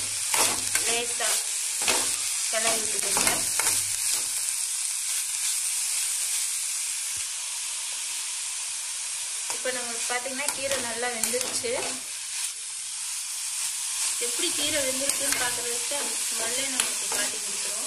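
Ponnanganni keerai greens and small onions sizzling in oil in a steel kadai while being stirred with a steel spoon, the spoon scraping against the pan in stretches, with only the steady sizzle between them.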